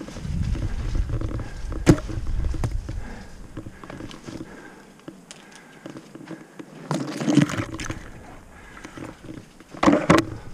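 Mountain bike riding over a dirt singletrack: tyres rolling on the trail and the bike rattling over roots and bumps. There are sharp knocks about two seconds in, a cluster around seven seconds, and the loudest near the end.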